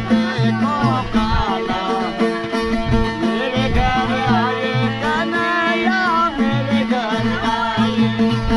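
Live folk music: a singer's sliding, ornamented melody over a steady drone and repeated plucked low notes from a string instrument.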